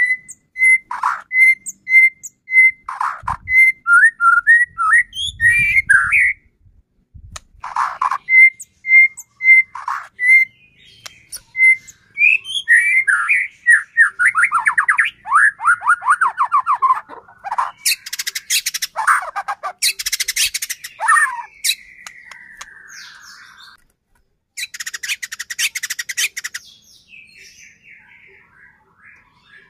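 White-rumped shama (murai batu) singing a varied, loud song: runs of short repeated whistled notes, fast tumbling series of descending notes, and, past the halfway mark, two spells of harsh crackling rattles (the shama's 'kretekan').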